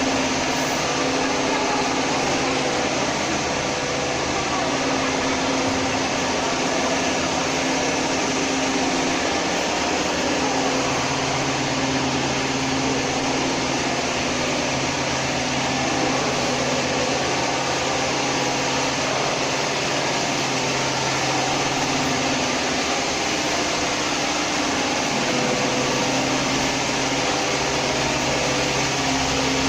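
Vacuum frying machinery running steadily: a continuous mechanical hum and whir with a constant low tone. A deeper layer of the hum steps up about a third of the way through and again near the end.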